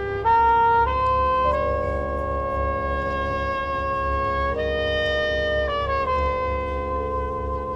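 Marching band winds playing held chords that move to a new chord every second or so, with a louder entrance about a third of a second in.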